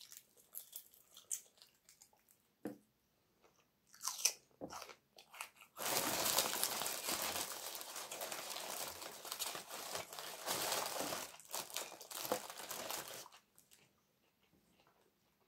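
Brown paper bag crinkling and rustling for about seven seconds as a hand rummages in it and pulls out a bread roll. Before it come a few quiet clicks and eating sounds; the rustling starts about six seconds in and stops near the end.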